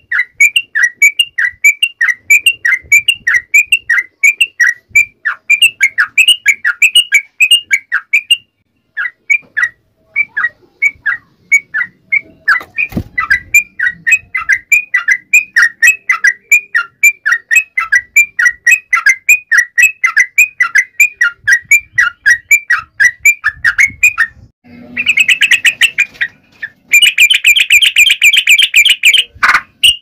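Trucukan (yellow-vented bulbul) song: a fast, steady run of short, falling, bubbly notes, about three a second, with a brief break about nine seconds in. Near the end comes a harsher, rapid chattering run.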